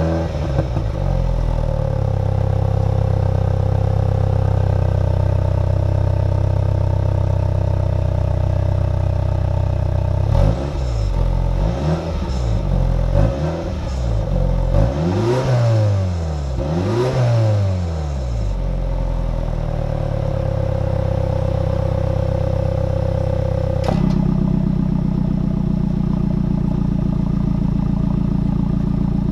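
MINI John Cooper Works turbocharged four-cylinder engine and exhaust idling, then revved in about five quick blips that rise and fall before settling back to idle. About two-thirds through, the idle note changes abruptly with a click.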